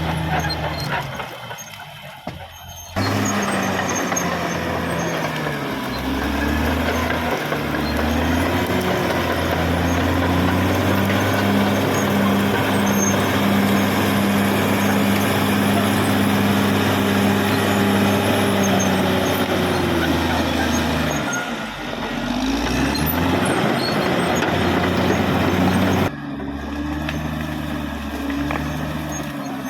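Caterpillar D6R XL bulldozer's diesel engine running hard, its pitch rising and falling as the throttle changes. The sound drops briefly early on, jumps back about three seconds in, and changes abruptly again near the end.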